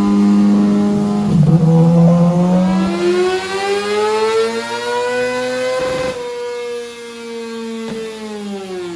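Kawasaki ZX-6R race bike's inline-four engine on a dyno pull: the revs climb steadily for about six seconds, then the throttle shuts and the revs fall away. It is a test run after the fueling was richened to improve the power curve.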